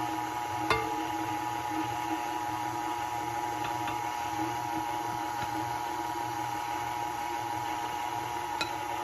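KitchenAid stand mixer running steadily on low speed, its motor giving an even hum as it mixes flour into cookie dough. Two sharp clicks stand out, about a second in and near the end.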